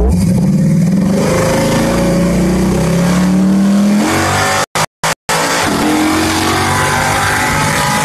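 Car engine heard from inside the cabin accelerating hard from a stop, its pitch climbing through first gear, falling at an upshift about four seconds in, then climbing again in the next gear. The recording cuts out completely three times in quick succession just before five seconds.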